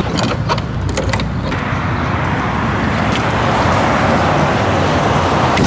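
Metal latches on an enclosed car trailer's rear ramp door clicking and knocking as they are undone, a few sharp clicks over the first second or so. After that a steady rushing noise takes over and grows a little louder partway through.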